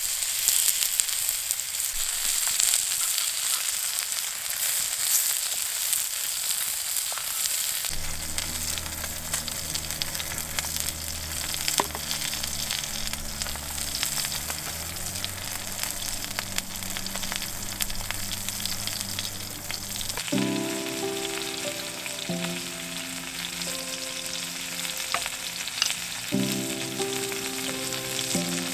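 Food sizzling and crackling as it fries in a hot pan. Background music comes in about eight seconds in, a melody of held notes joining near the end.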